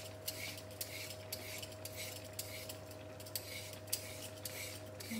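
Carrot being peeled with a vegetable peeler: quick, even scraping strokes, about two or three a second, over a steady low hum.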